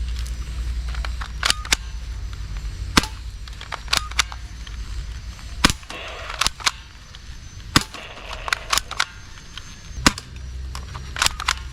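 Plastic toy blasters clicking and snapping: about fifteen sharp, irregular clicks, some in quick pairs or triplets, over a steady low rumble.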